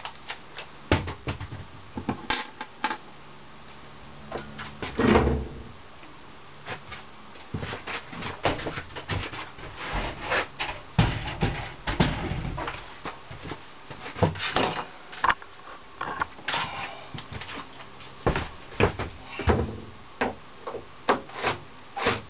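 Irregular knocks, clicks and scraping of objects being handled and set down, with one heavier thump about five seconds in.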